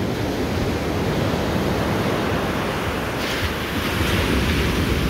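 Ocean surf breaking and washing up a sand beach, a steady rush that swells about three seconds in, with wind rumbling on the microphone.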